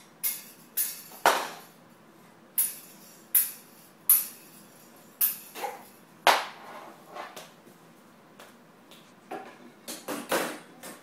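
Irregular sharp knocks and clanks of small hard objects being banged around by a child, each with a short ring. There is a run of them in the first half, a pause, then a quick cluster near the end.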